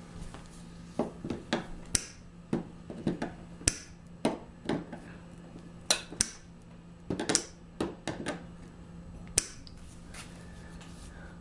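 Irregular sharp clicks and taps of steel pliers gripping and pulling small nails from an accordion's case, metal clicking on metal and wood.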